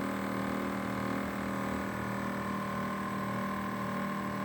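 LG inverter air conditioner's outdoor condenser unit running with a steady hum made of several held tones, the abnormal noise the owner complains of.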